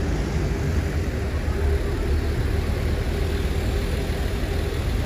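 Steady street traffic noise: a continuous low rumble of cars running past.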